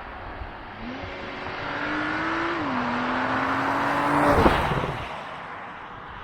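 2021 Porsche Macan Turbo's twin-turbo V6 accelerating hard, with one upshift about two and a half seconds in. It grows louder to a peak as the car passes about four and a half seconds in, then fades away.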